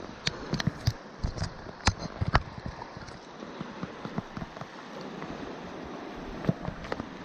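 Rushing stream water, a steady hiss, with a scattering of short, sharp clicks and taps, clustered in the first two seconds or so and again near the end.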